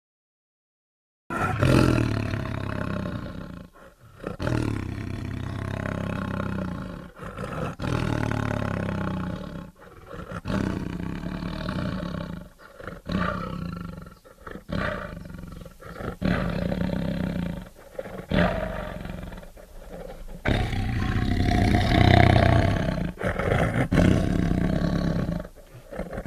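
Tiger roaring in a long run of deep calls, each one to two seconds long with short breaks between, starting after about a second of silence.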